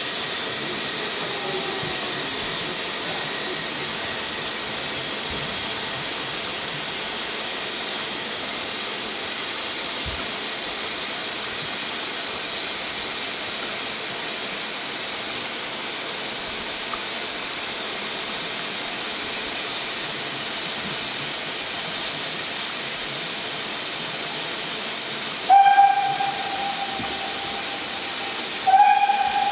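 Steady rushing hiss of a steam-hauled train on the move, with steam blowing past the open carriage window. Near the end a BR Standard Class 9F steam locomotive's whistle gives two short blasts about three seconds apart.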